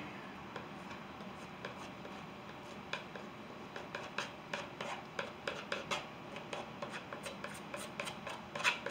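Palette knife scraping and dabbing thick oil paint across a canvas in short strokes, sparse at first and then coming about two or three a second from about three seconds in.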